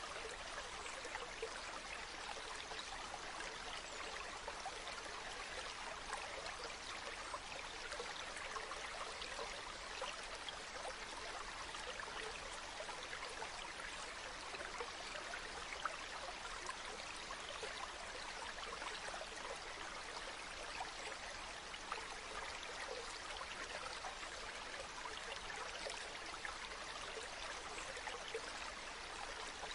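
Mountain stream running steadily over rocks, with a constant rushing and fine burbling.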